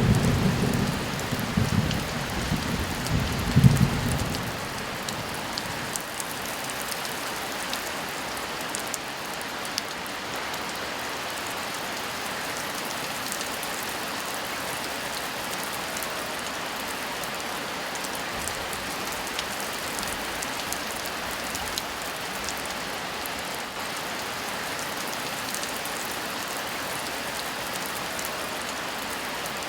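Steady heavy rain with scattered drop ticks. It opens with a rumble of thunder that lasts about four seconds, with a second, sharper peak near its end.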